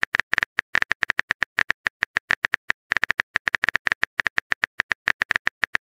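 Keyboard typing click sound effects from a texting-story app, a quick irregular run of clicks, about ten a second, as a message is typed out.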